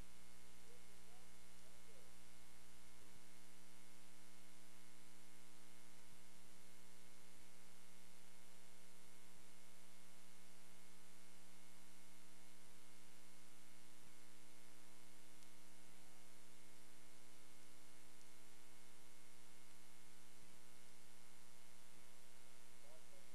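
Steady electrical hum and buzz, a stack of many steady tones; its deepest note drops out about three seconds in.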